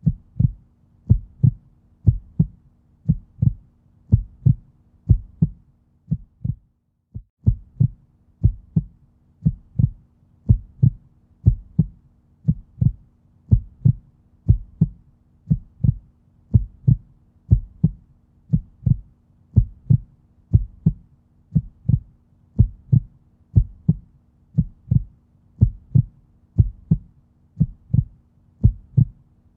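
Human heartbeat: a steady rhythm of low lub-dub double beats, a little under a second apart, over a faint low hum. The beat drops out briefly about seven seconds in, then carries on.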